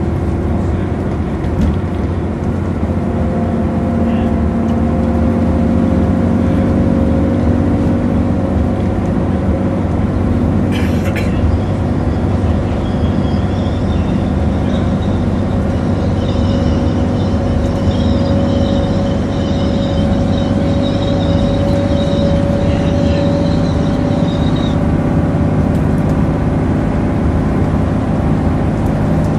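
Double-decker bus's diesel engine and drivetrain running under way, heard from the upper deck: a steady drone with one tone rising slowly in pitch. A brief knock comes about eleven seconds in, and a high whine sounds from about twelve to twenty-five seconds.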